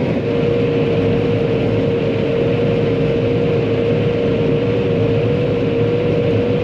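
Diesel engine of a piece of farm machinery running steadily, with a steady high whine held over the rumble.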